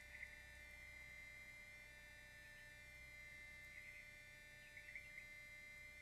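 Near silence: a faint steady electrical hum, with a few faint short chirps now and then.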